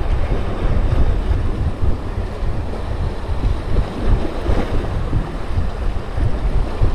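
Wind buffeting the camera microphone in heavy gusts over sea waves washing against shore rocks.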